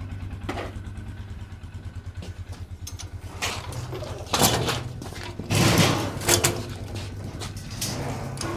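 Side-by-side UTV engine idling steadily with a fast, even low pulse. Several short, louder bursts of noise cut in around the middle.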